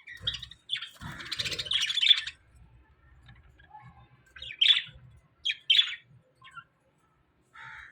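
Small flock of budgerigars chirping: a busy run of overlapping chirps for the first two seconds, then a few single sharp chirps.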